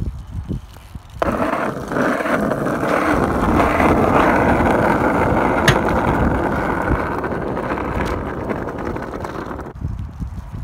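BMX bike tyres rolling over rough asphalt close by, a steady rushing noise that starts suddenly about a second in and cuts off near the end, with one sharp click about halfway through.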